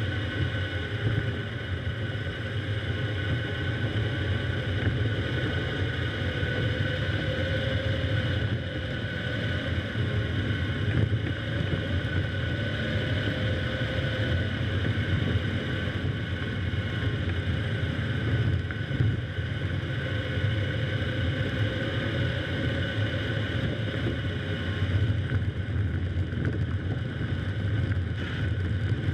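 Car driving along snow- and slush-covered roads: a steady low rumble of engine and tyres, with a faint constant whine.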